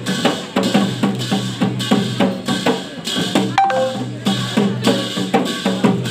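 Percussion music: drums beaten in a quick, steady beat with sharp metallic strikes over a steady low drone, and a short held tone about three and a half seconds in.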